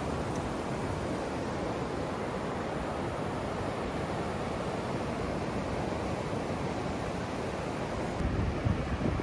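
Steady rush of surf washing on a beach, with wind buffeting the microphone in low rumbles near the end.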